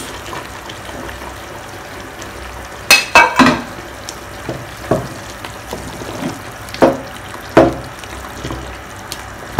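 A pot of palm-nut banga stew simmering with a steady hiss while a spoon stirs it. The spoon knocks sharply against the pot about five times, loudest twice in quick succession about three seconds in.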